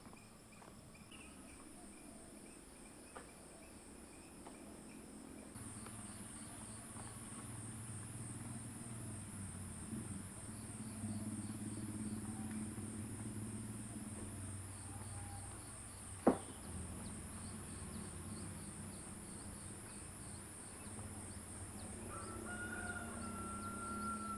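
Insects chirring steadily in a fast, even pulse, growing louder about five seconds in. A single sharp click comes about two-thirds of the way through, and a rooster starts crowing near the end.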